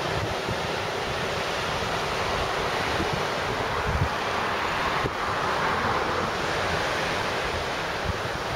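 Surf washing onto a sandy beach, a steady rushing wash that swells a little past the middle, with wind buffeting the microphone.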